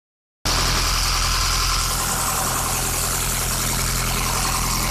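Mud pump for soil-investigation drilling running steadily with a constant low hum, coming in abruptly about half a second in.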